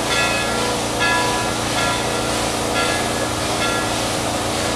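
CNJ 113, a 0-6-0 steam switcher, working some way down the track: a steady low rumble, with its bell ringing about once a second.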